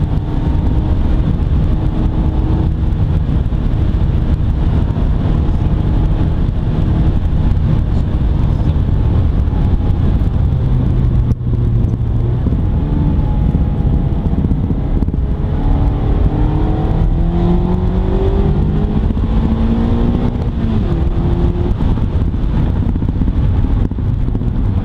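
Mazda MX-5 ND's 1.5-litre SkyActiv-G four-cylinder engine heard from the open-top cabin over heavy wind and road rush while driving. About two thirds of the way in its revs climb steadily for several seconds, then drop sharply.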